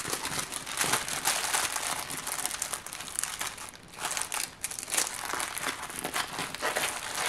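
Diamond-painting canvas sheet crinkling as it is handled and rolled up, in irregular bursts.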